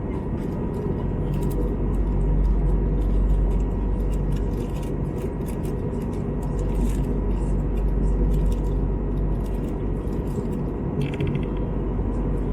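Steady cabin noise of an Airbus A321neo in the climb: a low, even drone of engines and airflow, with scattered faint clicks and rattles from the cabin.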